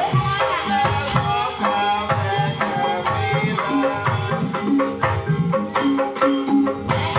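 Ebeg (kuda lumping) dance music: kendang hand drums beating a quick, steady rhythm under a slompret shawm playing a bending, ornamented melody, with sustained ringing notes beneath.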